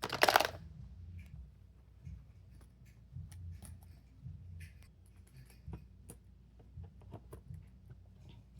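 Small fidget toys being handled and sorted into bins: a short loud clatter in the first half-second, then scattered light clicks and taps of plastic pieces.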